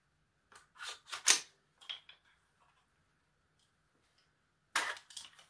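AR-15 rifle being worked by hand: the charging handle is pulled back and the bolt locks back on an empty Gen 3 PMAG, a quick run of metallic clicks and clacks about a second in, one sharp clack louder than the rest. Another sharp metal clack comes near the end as the rifle is handled.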